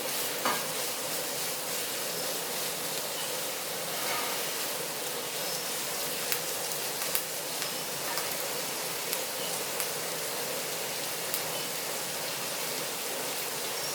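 Sliced onions and curry leaves frying in hot oil in a pan: a steady sizzle, with a few light clicks of stirring.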